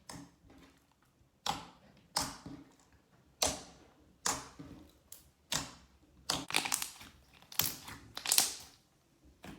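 Slime being pressed and squeezed by hand: a series of sharp, crackly clicks and squishes, each fading quickly, coming closer together after about six seconds.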